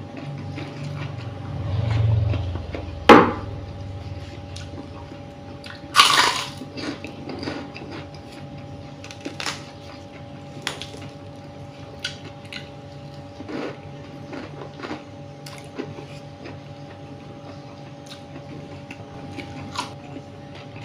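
Close-up eating sounds of a person chewing fried rice eaten by hand, with scattered small clicks and taps of fingers on the plate. A sharp click about three seconds in and a short crackly rustle about six seconds in stand out, over a faint steady hum.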